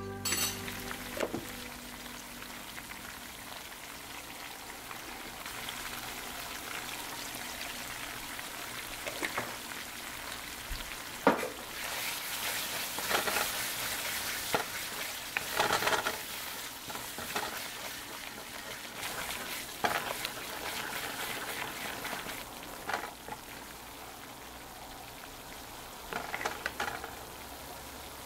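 Sweet chili sauce sizzling steadily in a metal wok as it reduces and thickens, with a wooden spoon stirring and scraping against the pan in spells about a third and halfway through and again near the end.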